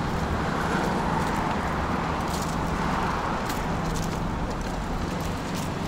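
Steady hum of city street traffic from the avenue beside the sidewalk, with a few faint clicks over it.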